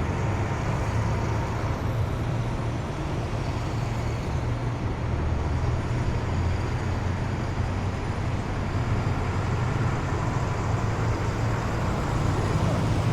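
Heavy military vehicles in a column, a steady low engine rumble with no sudden changes.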